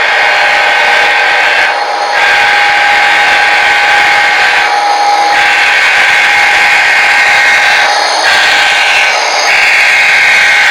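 Model train running close by: a steady electric-motor whine with a higher hissing band that drops out briefly every few seconds.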